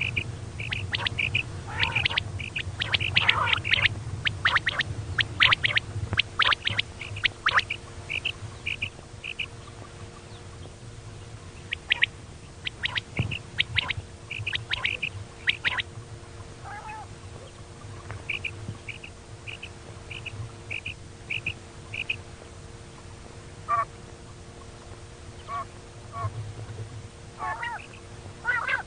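Female quail calling, the call used to lure quail at night: many short, sharp high notes, crowded together at first and then more scattered, including a run of evenly spaced notes about two a second. A steady low hum runs underneath.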